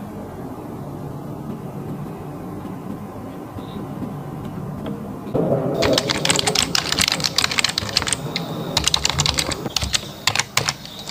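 A low steady rumble, then from about halfway a rapid run of computer keyboard typing clicks, a typing sound effect that lasts to the end.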